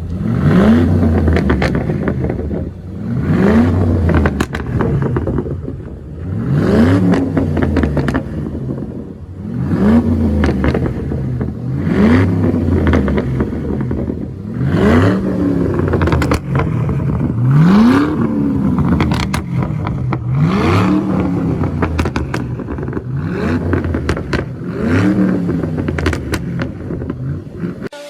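Ford Mustang GT's 4.6-litre V8 revved hard about every three seconds through a free-flow exhaust, the revs climbing quickly and then dropping back. Each fall is followed by popping and crackling on the overrun from an ECU remapped for exhaust crackles.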